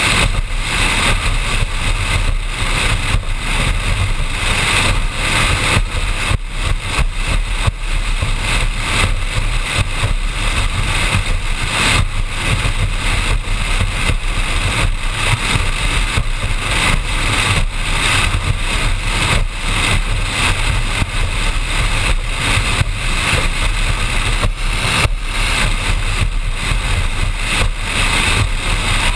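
Offshore performance powerboat running at speed: loud, steady engine noise mixed with rushing wind over the deck-mounted camera.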